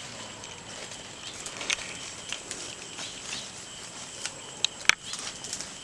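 Outdoor rural ambience: a steady high insect drone with a few short, sharp chirps or clicks, the loudest about five seconds in.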